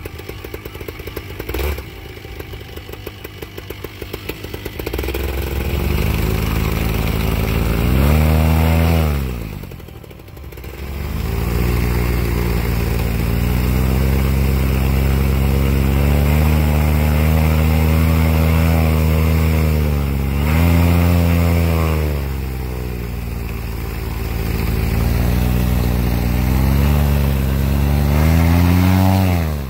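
Vittorazi Moster 185 single-cylinder two-stroke paramotor engine and propeller being warmed up on the ground. It idles at first, then is throttled up and held high several times, with a brief drop back about ten seconds in and a smaller dip later. The engine sound drops away sharply near the end.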